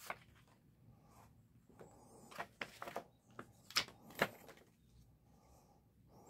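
Paper handling as a large art book's cover and pages are turned: soft rustling with a string of short, crisp paper snaps, the two loudest a little past the middle.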